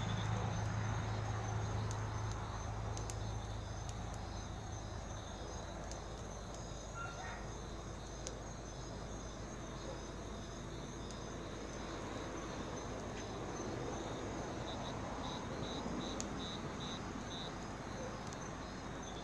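Crickets chirping steadily in the night air, with a short run of quick, evenly spaced chirps about three-quarters of the way through.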